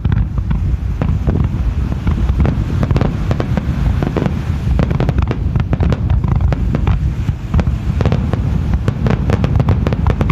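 Aerial fireworks display: many shells bursting in rapid, overlapping bangs and crackles, with a continuous low rumble beneath.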